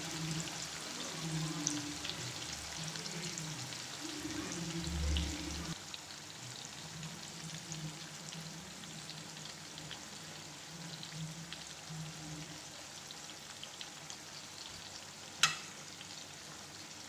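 White pomfret pieces shallow-frying in oil on a low flame, the oil sizzling steadily with fine crackles. A single sharp click comes about fifteen seconds in.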